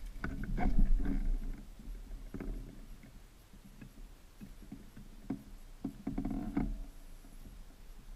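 Irregular knocks, creaks and rubbing picked up through the motorcycle and the camera strapped to its rear peg as the rider swings on and settles onto the seat. The densest clusters come in the first second or so and again about six seconds in.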